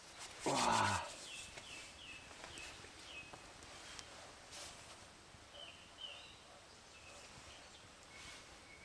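Firewood being split by hand, with a loud creaking crack about half a second in that falls in pitch, then a few faint knocks. Small birds chirp in a morning woodland chorus behind it.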